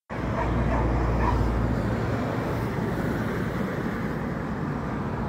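Steady road and engine rumble of a moving vehicle, heavier at the low end for the first couple of seconds.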